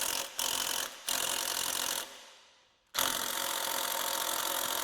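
Handheld power driver running in short bursts and then in one long run from about three seconds in, backing out the bolts of a water pump housing.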